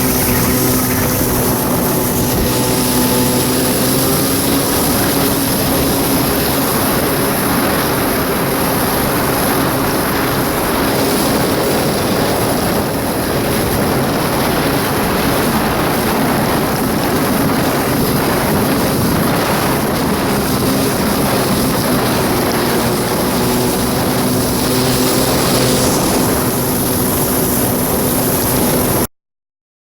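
Kawasaki 650SX jet ski's two-stroke twin engine running steadily at speed over a loud rush of water and wind. The engine note fades under the rush in the middle, comes back, and then the sound cuts off abruptly near the end.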